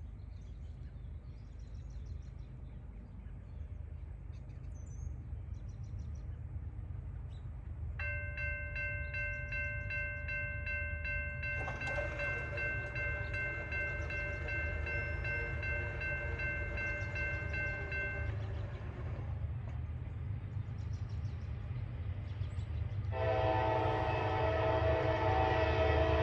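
Diesel freight locomotive horn sounding for a grade crossing over a steady low rumble: one long, steady chord blast of about ten seconds, then a louder blast starting near the end as the train draws closer.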